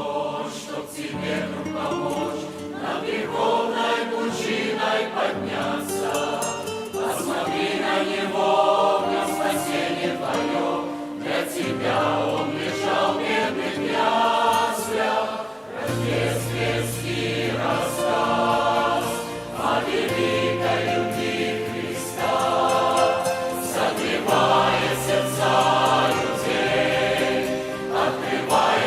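Church choir singing a Russian Christmas song in several parts. A stronger low bass line comes in about halfway through.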